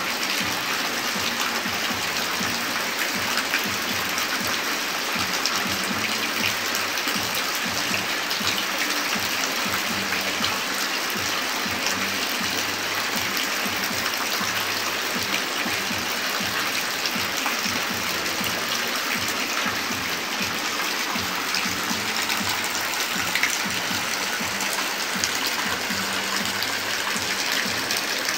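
Rain falling steadily, a constant wash of noise speckled with small ticks of individual drops.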